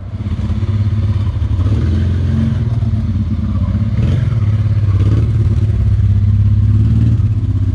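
Honda Transalp's V-twin engine running at low revs, steady, as the motorcycle is ridden slowly forward.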